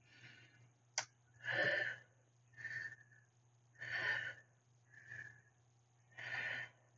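A woman breathing hard and rhythmically while holding a side plank: louder breaths about every two seconds with quieter ones between. A single sharp click about a second in.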